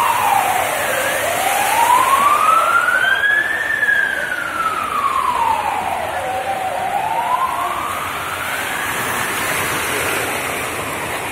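An emergency vehicle's siren wailing, its pitch slowly sweeping down and up about twice and fading near the end. Underneath is a steady hiss of rain and water on a flooded street.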